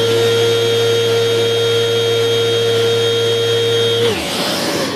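Electric random-orbit sander with a 320-grit disc sanding a wooden board: it runs at a steady whine, then is switched off about four seconds in and winds down with a falling pitch.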